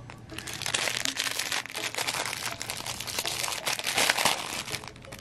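Thin plastic bag crinkling and rustling as it is handled: a dense run of crackles lasting several seconds.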